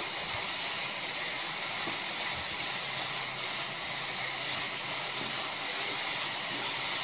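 Grated coconut, sugar and milk mixture sizzling with a steady hiss in a pan as it cooks down into burfi, stirred with a wooden spatula.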